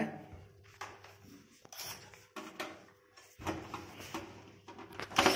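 Intermittent clicks, knocks and scraping of a screwdriver and metal parts as screws are taken out of the round safety cover on a kitchen chimney's motor housing. Louder knocks come about three and a half seconds in and again near the end.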